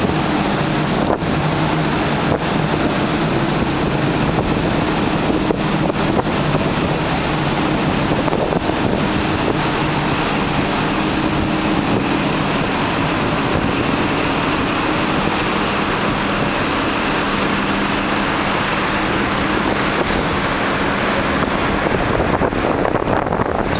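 Wind buffeting the microphone on the open top deck of a cruise ship, a loud, steady rush, with a steady low hum underneath that fades near the end.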